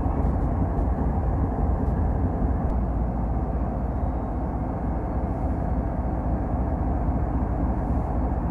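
Ferromex diesel-electric locomotives' engines running close by: a steady low rumble with no break.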